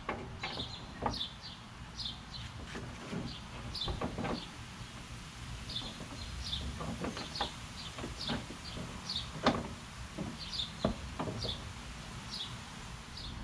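Plastic hood of a lawn tractor knocking and clicking now and then as it is worked into place, sharpest about a second in and again around nine and a half seconds. A small bird chirps repeatedly in short, high notes.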